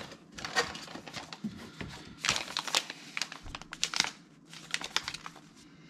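Crinkling of product packaging being handled, in irregular crackles that are busiest in the middle and thin out towards the end.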